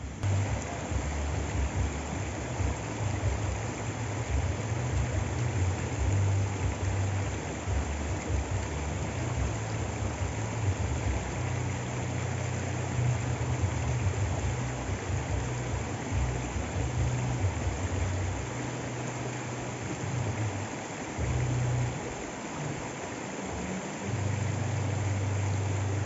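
Muddy forest stream running over rocks: a steady rush of water with a deep rumble underneath that dips for a few seconds near the end.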